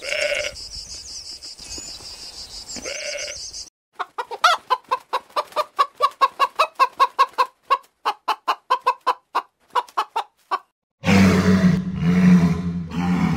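A chicken clucking in a long run of short, quick clucks, several a second, from about four seconds in. Before it come two short animal calls over a steady high buzz, and near the end a loud, deep animal call takes over.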